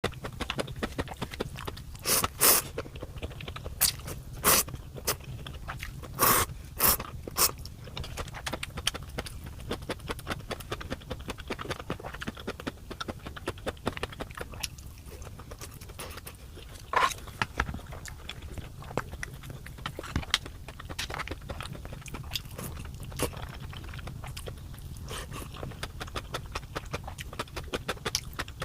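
A person eating spicy dumpling ramen, with steady chewing throughout. Several loud, short noodle slurps come about two seconds in, around four and a half seconds, twice between six and seven seconds, and once more around seventeen seconds.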